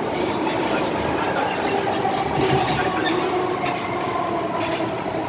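MTR M-Train metro car running, heard from inside the car: steady rail and running noise with the train's electric traction whine, two tones that drift slowly down in pitch.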